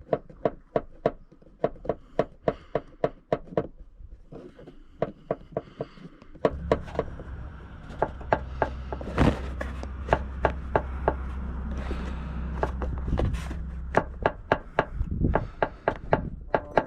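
Rapid, evenly repeated clicking knocks from the rear of a Toyota Vitz (SCP10), about three a second: the abnormal rear noise being tracked down. About six seconds in, a steady low drone of the car running joins the knocks.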